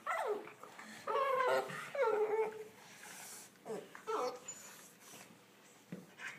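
Olde English Bulldogge puppies, about ten weeks old, whining and yipping as they play together, a string of short calls in the first few seconds, then fainter ones.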